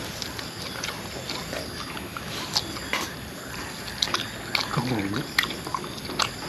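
Close-up eating sounds of a man gnawing meat off a grilled pork rib bone: scattered wet smacks and clicks of biting and chewing, with a short hum of his voice about five seconds in.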